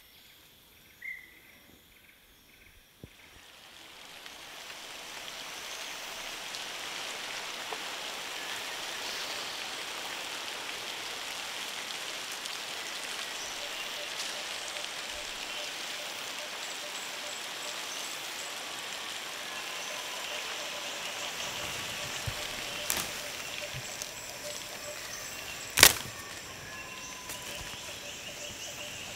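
Rain comes in about three seconds in and settles into a steady hiss on the rainforest canopy. Near the end two sharp cracks cut through it, the second much louder.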